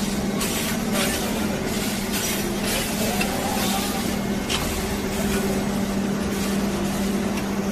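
Brick-handling production line running: a steady machine hum under a wash of factory noise, with a few brief knocks and clatter from the roller conveyor and robotic gripper moving stacks of hollow bricks.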